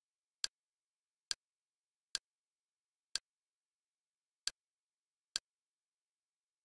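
Six short, sharp clicks at uneven intervals of about a second, with dead silence between them: the Kodi menu's navigation sound, one click for each step as the home menu scrolls from item to item.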